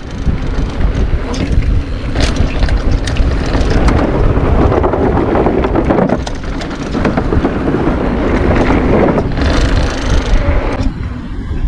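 Mountain bike descending a trail at speed: wind buffeting the microphone over the rumble of tyres on dirt, with knocks and rattles from the bike over rough ground here and there.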